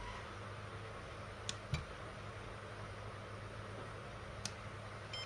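Steady low hum and hiss, with a few faint clicks from the buttons of a FlySky FS-i6 radio transmitter being pressed.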